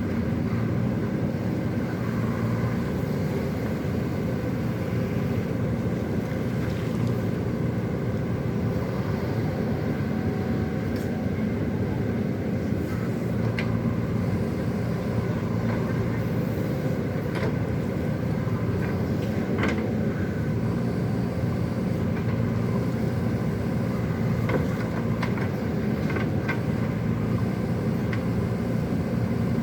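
Excavator's diesel engine running steadily under work, with scattered short metallic clanks and knocks.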